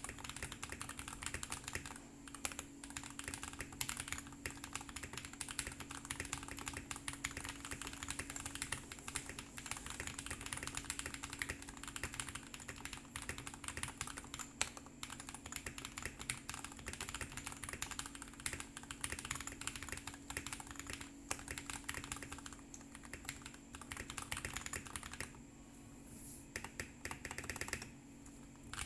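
Continuous fast typing on a tape-modded Keychron C1 mechanical keyboard with lubed, filmed tactile switches (Boba U4T stems in Hyperglide housings) and Taihao keycaps. The keystrokes run in a dense stream, broken by short pauses near the end. A low steady hum lies underneath.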